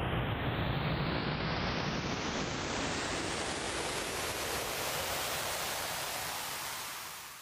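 A rising noise-sweep sound effect: a rush of hiss that grows steadily brighter over several seconds while its low rumble thins, then fades out near the end.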